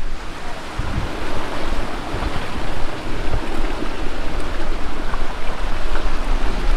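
Steady rush of water running into the start of a water slide, with wind buffeting the microphone in uneven low rumbles.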